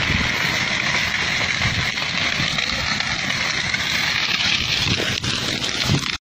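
Steady outdoor rush with irregular low thumps of wind and handling on a phone microphone as it is carried through tall grass, and a single sharp crack about five seconds in.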